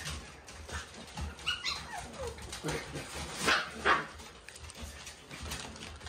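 Shiba Inu dogs vocalizing through a pen fence: a whine that slides down in pitch about a second and a half in, then two short, loud yaps close together near the middle.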